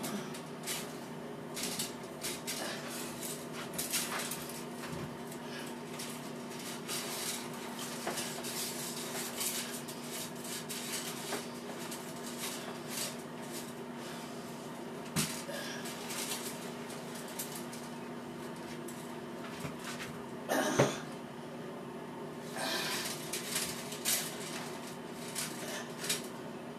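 Shower curtain rings clicking and rattling against a metal shower rod as a curtain is hung on it, with one louder knock about twenty seconds in.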